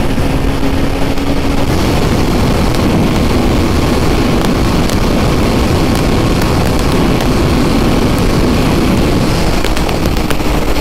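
KTM RC 390 single-cylinder motorcycle riding at speed: steady wind rush over the helmet mixed with the engine's note. The engine's tone stands out faintly near the start and again near the end.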